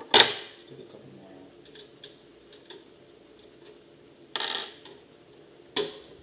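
Metal hard-drive trays of a QNAP TS-410 NAS being handled: a sharp clatter just after the start as a removed tray is set down, then a scrape about four seconds in and a sharp click near the end as the next tray's latch is worked and its handle swings open.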